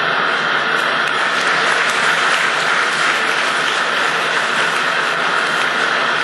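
Audience applauding, dense and steady clapping from many hands in a large hall.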